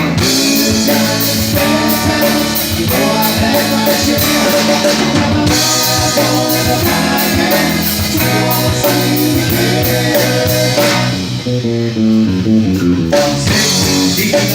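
Rock band playing an instrumental passage: guitar over bass and a drum kit keeping a steady beat. Near the end the drums drop out for about two seconds while the guitar plays on alone, then the full band comes back in.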